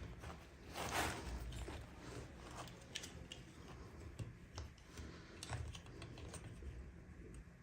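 Scattered light clicks and taps with a brief rustle about a second in: hands handling small plastic toy pieces and packaging during an unboxing.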